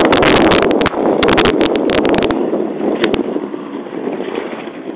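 Wind buffeting the microphone aboard a moving ferry boat, over the boat's engine running. The wind pops come thick in the first half and ease off, with the sound growing quieter, toward the end.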